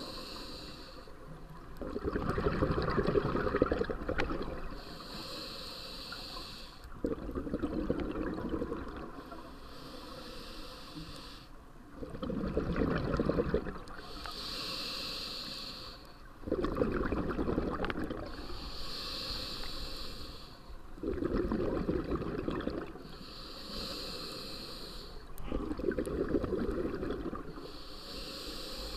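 Diver breathing through an open-circuit scuba regulator underwater: a hiss on each inhale alternates with a bubbling rush of exhaled bubbles, about six breaths at a slow, steady pace.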